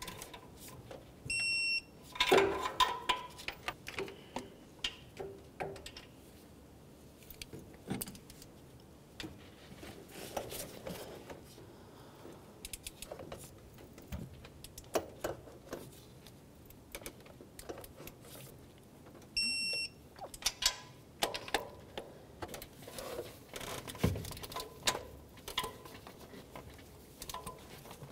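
Electronic torque wrench beeping twice, each a short steady beep, as exhaust manifold bolts reach the set torque of 25 ft-lb. Between the beeps come short ratchet clicks and the clink of the socket on the bolts.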